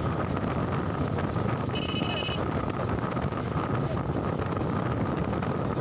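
Wind buffeting the microphone with steady rumbling road and engine noise from a moving vehicle. A short high-pitched beep sounds about two seconds in.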